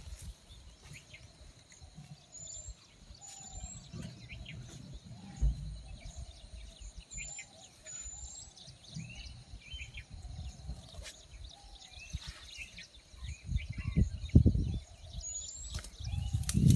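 Birds calling repeatedly, a short high rising chirp every second or so along with lower whistled notes, over low rustling and thumps that grow louder near the end.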